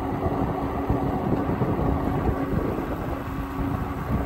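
Moped-style electric bike riding at about 17 mph: wind buffeting the microphone and road noise, with a steady hum from the bike's electric motor.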